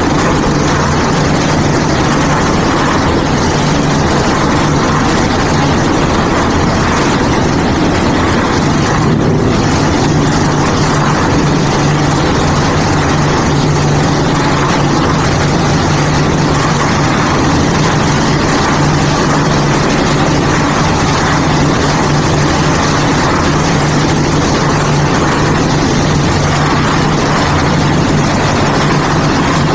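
Concrete mixer with loading hopper running: a loud, steady engine drone with a strong low hum.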